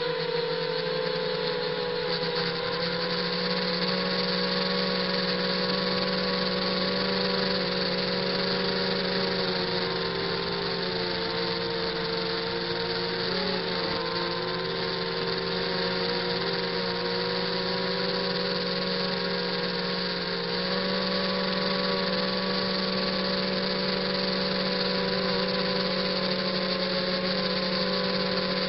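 ZMR 250 quadcopter's brushless motors and propellers whining steadily, heard close up from the camera on its frame, over a steady hiss of rushing air. The pitch wavers slightly with throttle, dipping briefly about halfway through and stepping up a little later on.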